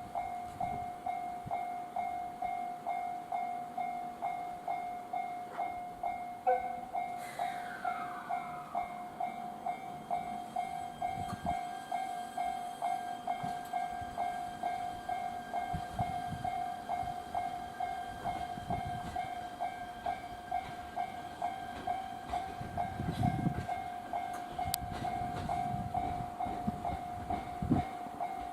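Railway warning bell ringing with an even, quick repeated ding, with train sounds from a 115-series train at the station beneath it. A brief falling whine comes about seven seconds in, and low rumbling swells in the second half.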